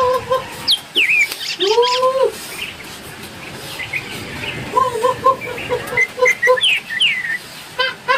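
Birds calling: quick runs of short repeated notes, one longer arched call about two seconds in, and a few high chirps that slide down in pitch.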